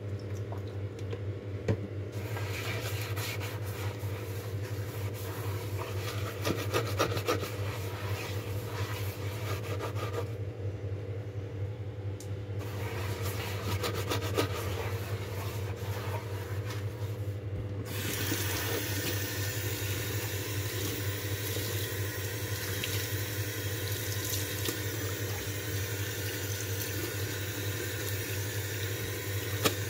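Kitchen sink being scrubbed with a sponge, irregular rubbing and scraping strokes over the basin and drain. About two-thirds of the way through, tap water starts running steadily into the sink while it is wiped out with a cloth. A steady low hum sits underneath throughout.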